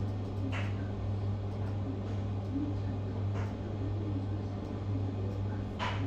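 A steady low hum, with three faint short noises over it: about half a second in, about halfway through, and just before the end.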